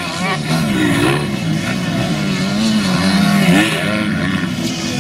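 Motocross bike engines revving, their pitch rising and falling as the throttles open and close.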